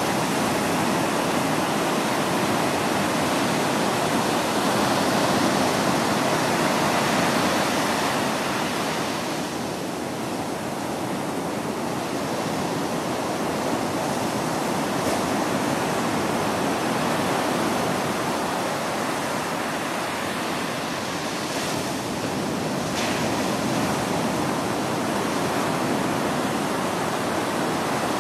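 Ocean surf washing onto a shore: a continuous rushing wash of waves that eases a little about a third of the way in and then builds again.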